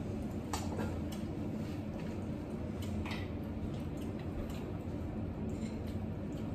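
A few light clicks of metal spoons against plates and serving bowls during a meal, over a steady low room hum.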